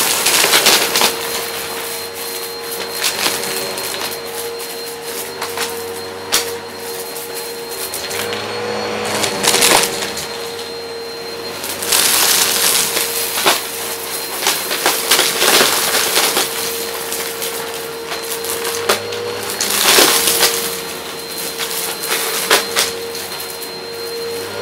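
Upright vacuum cleaner running with a steady motor hum and a thin high whine, its brushroll sucking up small bits of cardboard from carpet in repeated loud bursts of crunching and crackling.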